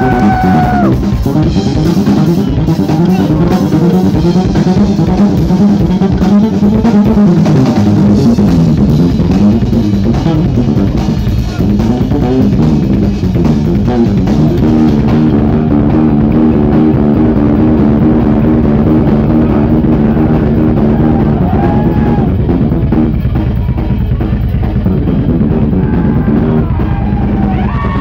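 Live band playing at full volume, led by a drum kit with kick and snare and an electric bass line.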